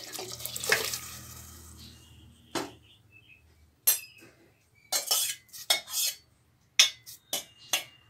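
Water poured into a metal pressure cooker pot of rice and moong dal, fading out over the first two seconds. Then a spoon knocks and clinks against the pot about ten times as the contents are stirred.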